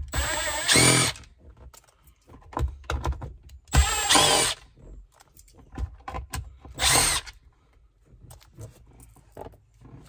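Power drill-driver running in three short bursts, backing out the screws that hold a pickup's center console cover. The first burst, at the start, lasts about a second, the second comes around four seconds in and the third around seven, with the motor's pitch rising as it spins up. Light clicks and knocks fall in between.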